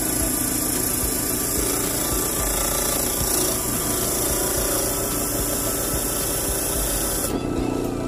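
A block of wood held against the spinning sanding disc of a homemade disc sander driven by an old washing machine motor, giving a steady rasping hiss over the motor's hum. About seven seconds in the rasping stops abruptly as the wood comes off, leaving the motor and disc running.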